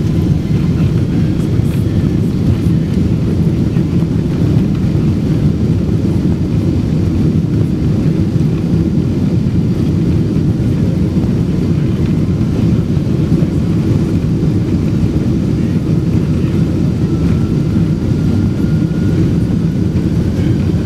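Cabin noise inside a Boeing 777-200 airliner on the ground: a steady, even low rumble of the engines and airflow. A faint thin whine rises slowly near the end.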